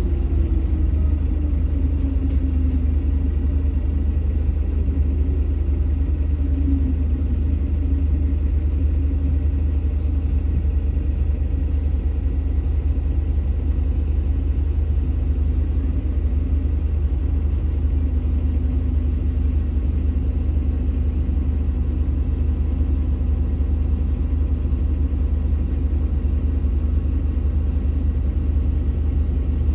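Volvo 7900 LH diesel-electric hybrid articulated bus standing with its diesel engine running at idle, a steady deep rumble. Its tone falls and settles lower in the first couple of seconds.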